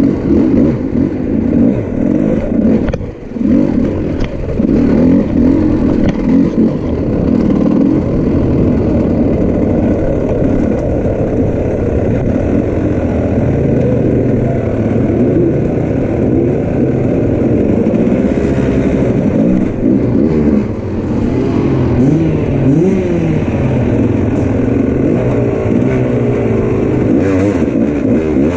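Enduro motorcycle engine heard up close from the rider's own bike, revving up and down continually as it picks its way over rocks and water, with the throttle briefly closed twice, about three seconds in and again after twenty seconds.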